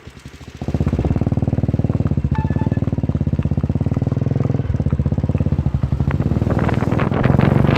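Small engine running steadily close by, starting about half a second in, with rapid sharper clicks joining near the end.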